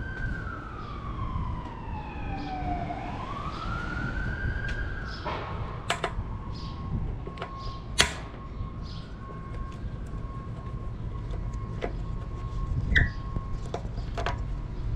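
A siren wails slowly up and down for the first five seconds or so, then sounds fainter with a steady tone. Sharp clicks are scattered through it, the loudest about eight seconds in.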